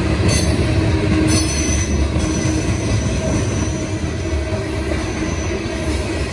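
Loaded coal hopper cars of a CSX freight train rolling past: a steady heavy rumble of steel wheels on rail, with a thin high wheel squeal over it from about a second in.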